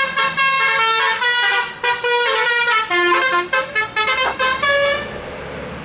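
A bus's telolet horn, a set of multi-tone horns playing a quick tune of stepped high notes, which stops about five seconds in and leaves a steady traffic rumble.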